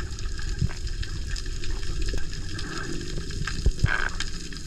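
Underwater ambience heard through a diving camera's housing: a steady low water rumble with a crackle of scattered sharp clicks, and a brief muffled rush near the end.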